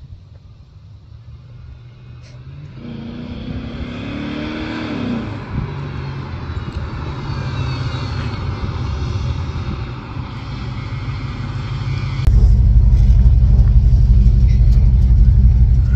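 LS-swapped 1973 Buick Electra's V8 accelerating at a distance, its pitch rising and then dropping once about three to five seconds in, and growing louder as the car approaches. About twelve seconds in, it becomes the loud, steady low drone of the engine heard from inside the car's cabin.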